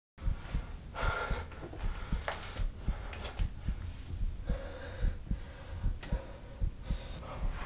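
A person's sharp, shaky breaths and gasps over a fast, uneven low thumping like a racing heartbeat, starting abruptly out of silence.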